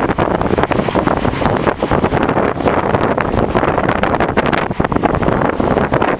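Strong wind buffeting the microphone on deck of a sailing yacht under way, over a steady rush of sea along the hull.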